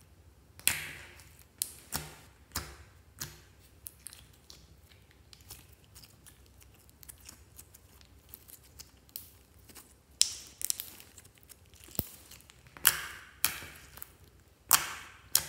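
Clear slime being stretched, folded and squeezed by hand, giving irregular sticky pops and crackles as it pulls apart and presses together. The pops come a few at a time, more thickly in the last few seconds.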